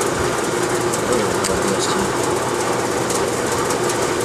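Steady mechanical whirring noise from running machinery, with a few faint light clicks.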